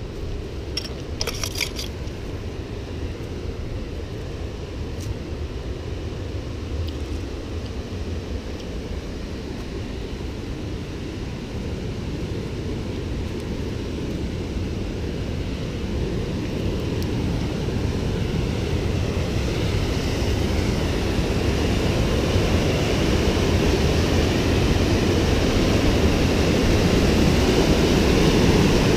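River rapids and waterfall whitewater rushing in a steady roar that grows steadily louder as the camera comes down to the water.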